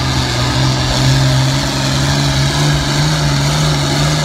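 International Harvester 1066 pulling tractor's six-cylinder diesel running hard under full load as it drags a weight-transfer sled. Its pitch holds nearly steady, rising slightly partway through.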